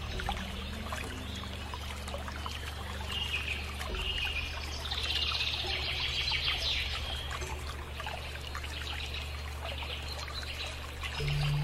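Birds chirping over a steady low hum and hiss, with faint low held tones underneath.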